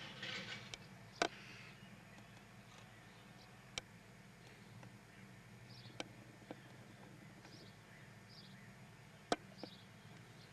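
Faint outdoor background with a few sharp, isolated clicks spread through it and some faint, short, high chirps.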